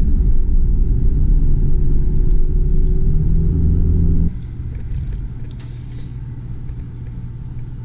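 Car driving, heard from inside the cabin: a loud, low road and engine rumble. About four seconds in it drops abruptly to a quieter, steady low hum with a few faint ticks.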